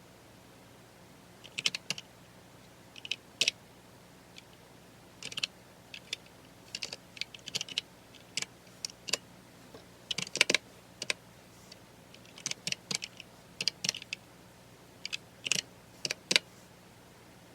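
Computer keyboard typing: irregular runs of sharp keystroke clicks with short pauses between them, a quick flurry about ten seconds in.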